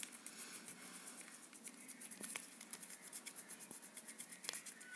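Faint, rapid scratching of colouring strokes on paper as a folded paper figure is coloured in yellow, with a couple of small sharper taps.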